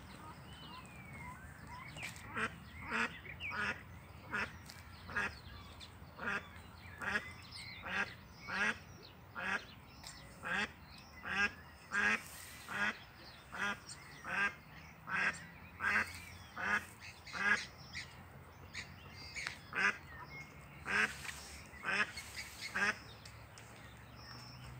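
A mallard hen quacking in a long, regular series of short quacks, about one to two a second, with a brief pause about three-quarters of the way through. It is the call a mother duck gives to keep her ducklings gathered close.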